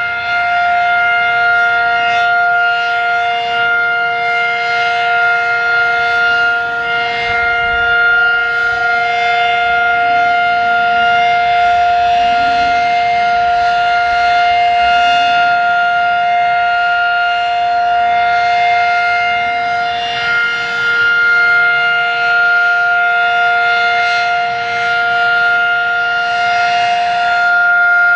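Fedelcode Type Mach 5 outdoor warning siren sounding its steady alert signal: a loud, continuous multi-note tone that holds its pitch, with slight swells and dips in loudness.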